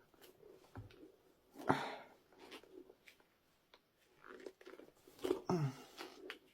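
Tyre levers and spanners scraping and knocking against the rubber tyre and metal rim of a Xiaomi Pro 2 e-scooter's 8.5-inch rear wheel while the stiff tyre bead is pried off. The scrapes and clicks come irregularly, loudest about two seconds in and again near the end.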